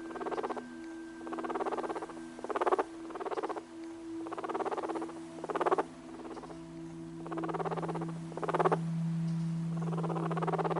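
Guinea pig purring: repeated bouts of a rapid pulsing vibration, roughly one every second or so, with short louder bursts alternating with longer softer ones. Steady low tones run underneath.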